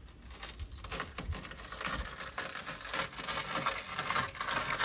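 Shattered car window glass crackling and scraping as it is worked loose from the frame, with many small clicks of breaking fragments.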